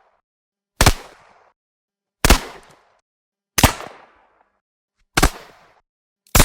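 Separate single pistol shots, one about every one and a half seconds, five in all with the last right at the end: each a sharp crack with a short fading echo, followed by silence.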